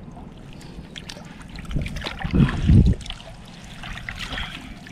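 Lake water splashing and sloshing, with two louder low, muffled thumps about two and a half seconds in.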